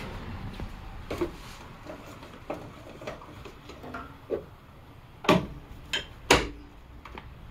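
Jeep Wrangler JK's plastic front grille being pressed into place, its clips knocking and clicking against the bar in front of the radiator: a string of separate knocks, the two loudest about five and six seconds in.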